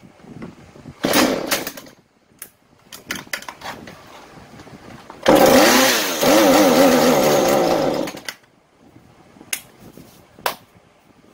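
Husqvarna 435 two-stroke chainsaw being pull-started: a short rattle of the starter cord about a second in, then the engine catches about five seconds in, runs unevenly with its pitch surging up and down for under three seconds, and cuts out. It starts but won't hold idle and dies, a fault the mechanic thinks most likely lies in the carburettor.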